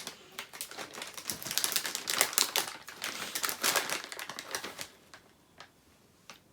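Plastic snack packaging crinkling and crackling in a dense, irregular run as it is handled and opened. It stops near the end, leaving a couple of isolated small clicks.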